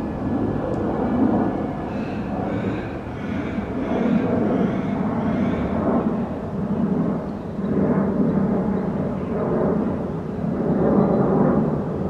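Loud, uneven low rumble of outdoor background noise, with faint high bird chirps a few seconds in.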